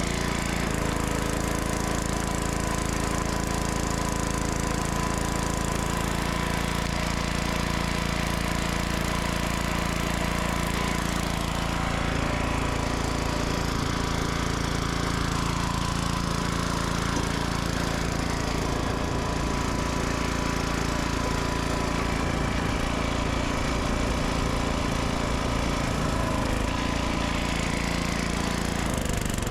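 Chainsaw engine running steadily, its note shifting about twelve seconds in.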